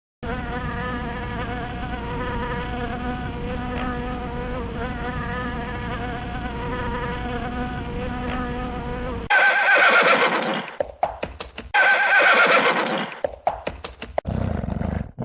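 A flying insect buzzing steadily for about nine seconds, then an abrupt switch to a horse whinnying twice, loud and high, with a shorter lower call near the end.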